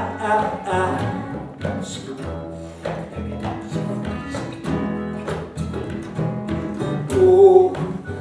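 Live acoustic folk band playing an instrumental passage between sung lines: strummed acoustic guitar, accordion, double bass and hand drum, with steady low bass notes under the strums.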